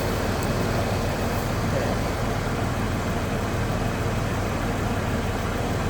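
2008 Saturn Vue's engine idling steadily with the air-conditioning compressor engaged and running, a steady hum with no change; the owner takes its steady running for the sign of a good compressor.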